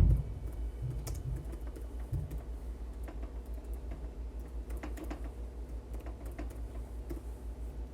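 Typing on a computer keyboard: scattered key clicks, irregular in rhythm, over a low steady hum.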